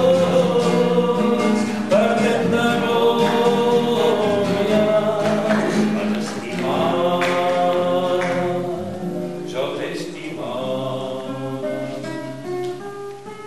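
A man singing a Catalan song in long held notes over a plucked acoustic guitar. About ten seconds in the voice stops and the guitar plays on alone, more quietly, in single plucked notes.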